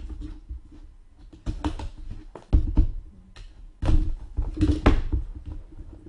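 Irregular knocks and thumps of cardboard card boxes and packs being handled on a tabletop, several in quick pairs.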